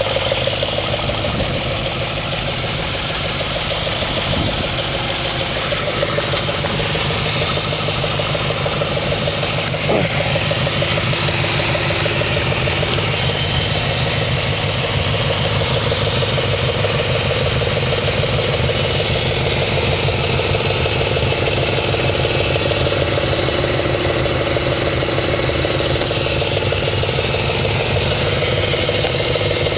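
2004 Audi S4's 4.2-litre V8 idling steadily with a fast, regular knock that the owner calls an engine knock at idle.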